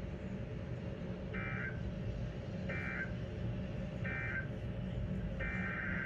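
Weather radio sounding the EAS digital data bursts that close a warning: three short, buzzy two-tone chirps about a second and a half apart, then a longer burst beginning near the end. A low steady rumble runs underneath.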